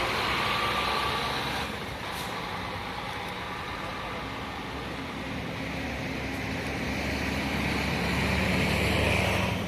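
Intercity bus's diesel engine running as the bus drives past, getting louder to a peak near the end.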